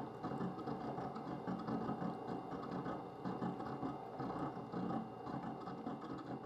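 Rikon 8-inch wet sharpener running, its motor and gear drive turning the grinding stone in its water trough with a steady mechanical whir.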